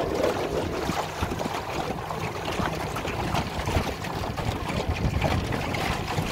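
Small aluminium boat under way at trolling speed: a steady low motor hum under choppy water slapping the hull, with wind on the microphone.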